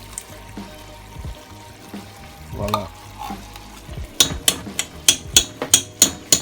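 A cooking utensil stirring a pan of chicken stew, with the tomato paste and water just added, over a faint steady sizzle. About four seconds in, the stirring turns into a quick run of sharp knocks against the pan, about four a second.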